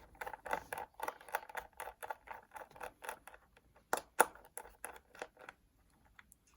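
Rapid light clicks and taps of a screwdriver and small screws being worked loose around an iMac's internal hard drive, with two sharper clicks about four seconds in. The clicking thins out near the end.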